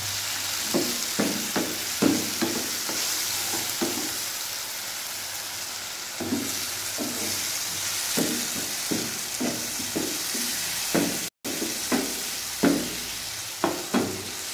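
A wet tomato-and-onion masala sizzling in a nonstick pan while a wooden spatula stirs and scrapes it, knocking against the pan irregularly, about once or twice a second.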